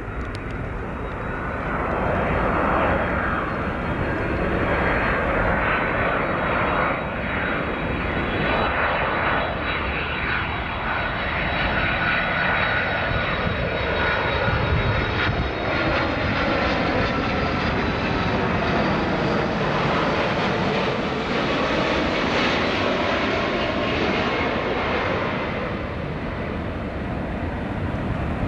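Boeing 767 airliner's twin turbofan engines at approach power as it flies a landing approach close by: a steady jet rumble with a high fan whine, holding at much the same loudness throughout.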